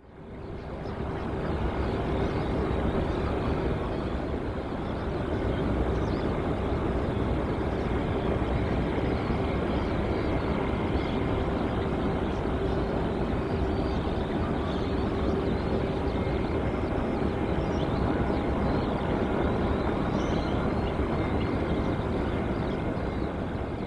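Aircraft engine running steadily, a constant hum with a faint higher whine over a rushing noise. It fades in over the first couple of seconds.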